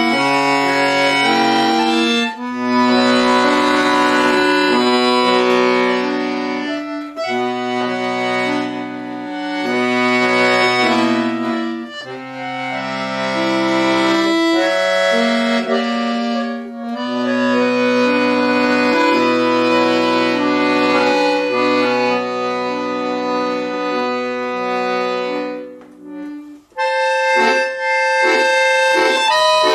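Chromatic button accordion played solo: held chords over a moving bass line, in phrases with short breaths between them. Near the end the music breaks off briefly, then goes on with short detached notes.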